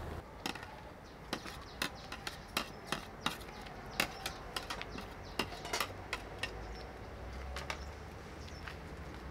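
A metal ladle tapping and scraping against a plastic tray and the rim of a metal cooking pot as dried strips are pushed into the pot: irregular sharp clicks, a few a second.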